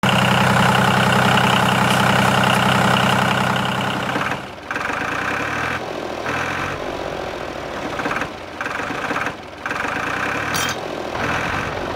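Small DC electric motor of a homemade toy tractor running, a steady whirring through its worm-gear drive. After about four seconds it breaks off into short stretches with brief complete gaps between them, several times.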